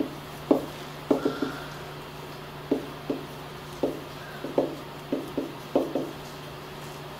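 Marker writing on a whiteboard: a run of short, irregular taps and strokes, about two a second, as the pen tip meets the board. A steady low hum runs underneath.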